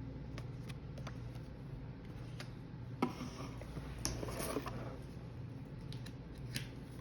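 Wine bottles and cardboard packaging being handled: scattered light clicks, a knock about three seconds in and a brief rustle a second later, over a steady low hum.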